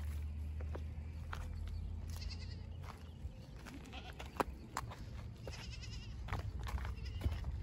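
Goats in a herd bleating, two wavering calls, the first about two seconds in and the second near six seconds, over scattered clicks and knocks and a steady low rumble.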